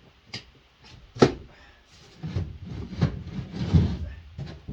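Workshop handling noises: a sharp knock about a second in, then a cluster of dull thuds and knocks, like wooden or metal things being moved and bumped.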